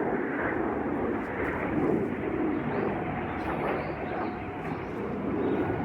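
Airplane flying over, a steady drone that gently swells and eases, with distant tornado warning sirens wailing faintly beneath it.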